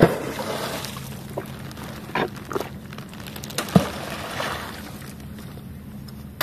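Pond water sloshing and splashing as a fishing net is hauled in from the water, with a few sudden splashes, over a low steady hum.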